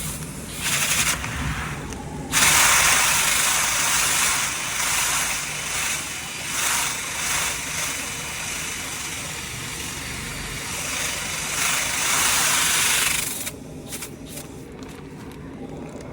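Rotary dryer-vent cleaning whip spinning inside a metal dryer vent duct, knocking lint loose while a vacuum draws on the duct. There is a short burst about half a second in, then a long run of about eleven seconds that stops suddenly near the end, leaving the steady hum of the vacuum underneath.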